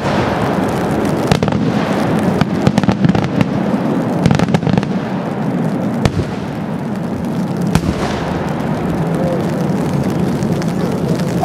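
Distant bursts of a 260 mm Italian multi-break cylinder shell (Mehrschlagbombe): a run of booming reports and crackling, with several louder bangs a second or two apart, heard from about half a kilometre away.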